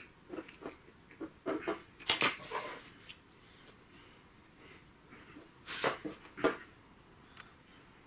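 Clicks and scrapes of hand tools working a metal MC4 pin contact onto a solar cable: long-nose pliers folding the crimp tabs around the wire, then a crimping tool squeezing the pin. The sounds come in short clusters, with two sharper noises about three-quarters of the way through.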